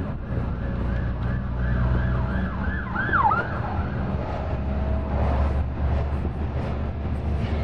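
UD Quester truck's diesel engine droning steadily, heard from inside the cab while driving. Over it, a high warbling tone rises and falls about three times a second through the first half, with one sharper falling swoop around the middle, then fades out.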